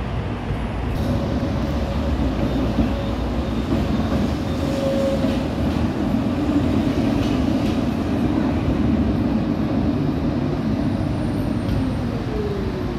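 Tram running on its rails with a steady, loud rumble; a tone slides down in pitch near the end.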